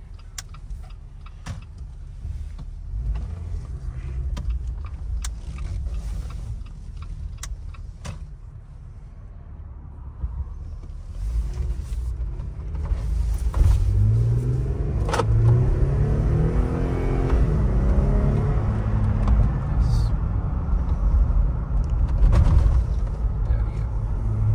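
Jeep Wrangler engine and road noise heard from inside the cabin: a low idle-like rumble with a few light clicks at first, then about halfway through the engine gets louder and its pitch rises and drops a few times as the Jeep accelerates.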